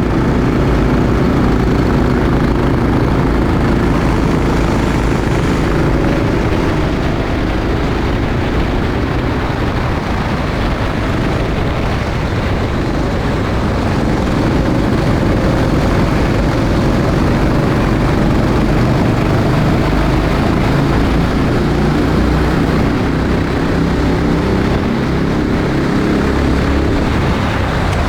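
Rental kart engine running continuously at speed, its pitch rising and falling gently as the kart races.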